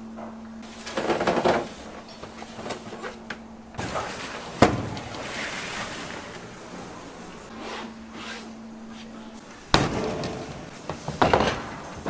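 Kitchen clatter: a few sharp knocks and bangs, the loudest about halfway through and again near the end, with rattling and scraping between them.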